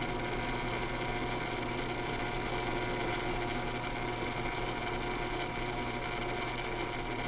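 A power tool fitted with a countersink bit runs with a steady whine while it cuts an eye socket into a hard super glue and baking soda lure body.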